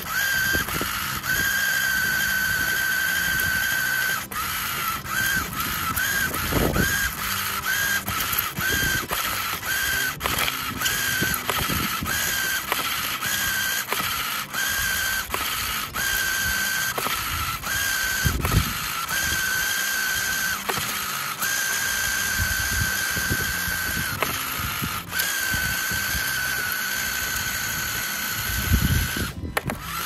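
Remote-control model tractor's small electric motor and gearbox whining under heavy load as it tries to pull a loaded trolley, cutting in and out repeatedly, with fast clicking from the gears.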